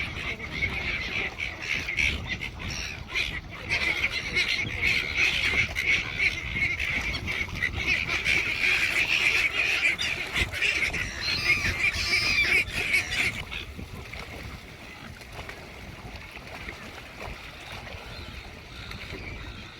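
Many birds calling and chattering at once in a dense, continuous din, which falls away about two-thirds of the way through.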